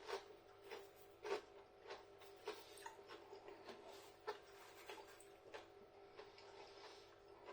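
Faint chewing of a crispy pancake, soft crunching clicks roughly every half second to second over a low steady hum.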